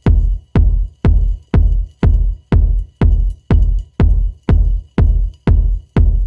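Electronic music built on a deep bass drum-machine pulse, beating steadily about twice a second, each beat fading before the next.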